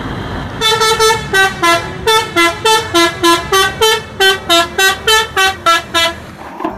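A tour bus's multi-tone "telolet" air horn playing a quick tune of short notes, about four a second, for some five seconds.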